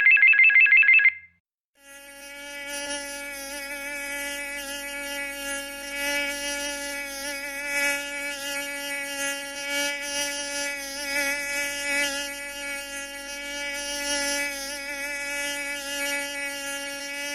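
A short electronic ring, a warbling high tone lasting about a second, then after a brief gap a steady, slightly wavering buzz like a flying insect.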